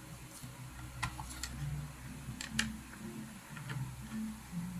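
Scattered light clicks and taps, about seven at irregular intervals, from a hard disk and its external enclosure being handled and fitted together, over a steady low hum.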